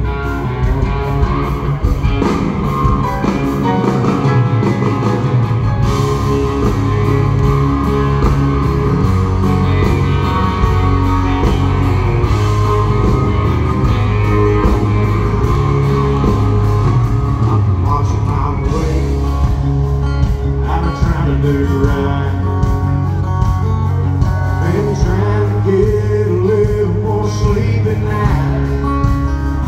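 Live country-rock band playing loud through a concert PA, heard from the audience: electric guitar, bass, drums and keyboards, with singing.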